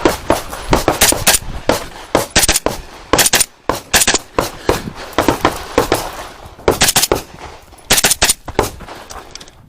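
A 10.5-inch short-barreled pistol-caliber carbine fires rapid strings of shots, mostly two to four at a time, with short pauses between the groups.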